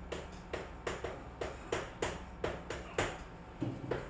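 A writing tool tapping and stroking as an equation is written out: a run of short, sharp ticks, about four a second and uneven in strength.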